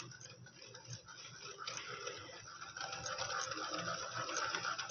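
Hand wire whisk beating an egg into creamed butter and sugar in a bowl: faint wet whisking, getting a little louder about three seconds in.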